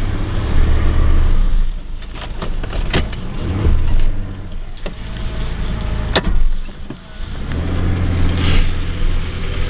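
Pickup truck driving on a snow-covered road, heard from inside the cab: a low engine and road rumble that swells and eases, with several sharp knocks.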